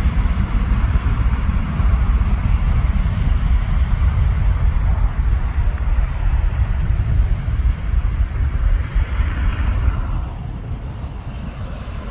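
Airbus A320 jet engine noise during takeoff: a steady, deep rumble with a hiss above it, easing somewhat near the end.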